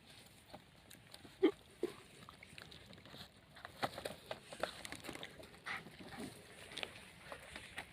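Canines making scattered short sounds, with a brief louder call about a second and a half in.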